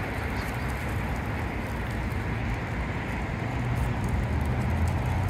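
Steady street-traffic noise from cars on a nearby road, with a low rumble that grows louder in the second half.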